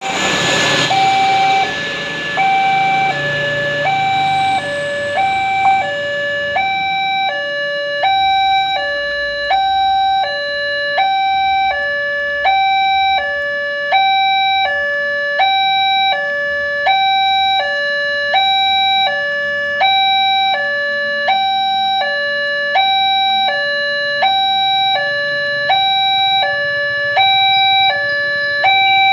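Indonesian railroad crossing warning alarm sounding its electronic two-tone signal, alternating a higher and a lower tone in a steady cycle of about one high-low pair every second and a bit, warning of an approaching train.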